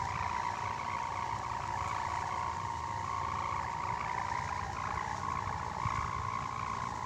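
Sendaren (kite hummer) on a Betawi calung kite droning in the wind with a snoring, rasping hum. The pitch wavers slightly but never stops.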